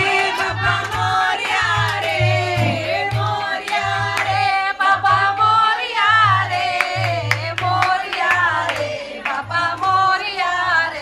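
Devotional singing with music: a sung melody over a steady low beat and sharp percussion strokes.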